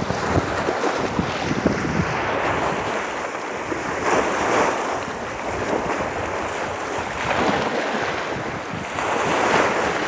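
Storm-driven chop splashing against a rock shoreline, swelling and easing every few seconds, with strong wind buffeting the microphone.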